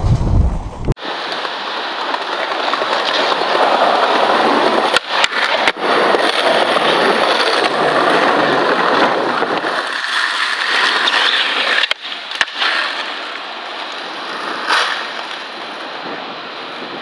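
Skateboard wheels rolling over pavement, a steady grainy rolling noise, with a few sharp clacks of the board about five seconds in and again near twelve seconds.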